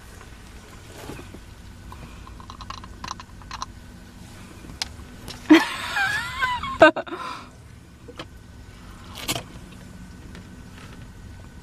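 Scoop and plastic tub of pre-workout powder clicking softly, then about halfway through a loud, wavering, wordless vocal reaction lasting about two seconds as the dry powder is taken, over a low steady rumble inside the car.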